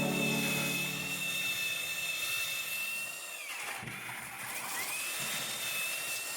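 Metabo HPT SB3608DA 36 V cordless belt sander running with a steady high whine; about halfway through the whine drops steeply in pitch and winds back up a second or so later.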